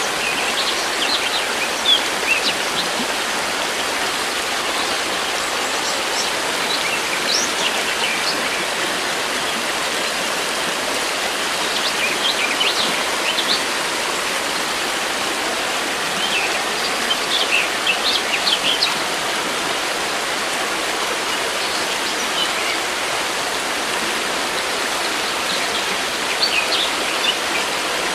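A river rushing steadily, with small birds chirping in short bursts over it now and then.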